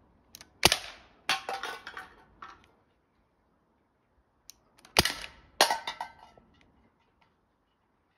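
Two air-gun shots about four seconds apart, each knocking a tin can off a ledge. About half a second after each shot, the can lands on paving and clatters and rolls for a second or so.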